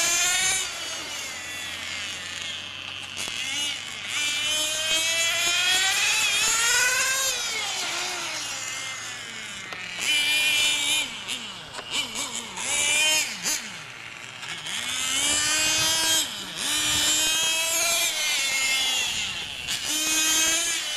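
Radio-controlled racing motorcycle's motor revving high. Its pitch rises in long climbs as it accelerates and falls away again, over and over through the laps.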